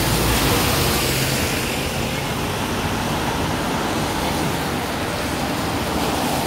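Road traffic noise: a steady hiss of passing vehicles, with a low engine rumble that fades out in the first second or two.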